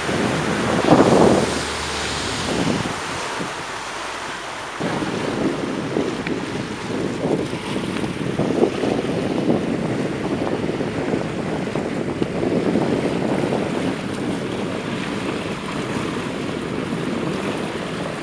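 Wind rushing over the microphone with water washing around a small speedboat. Strong gusts in the first two seconds, then a steadier rush from about five seconds in.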